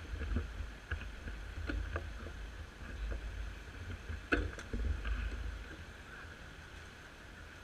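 Wind rumbling on the microphone in uneven gusts, with a few light clicks and taps, the sharpest about four and a half seconds in.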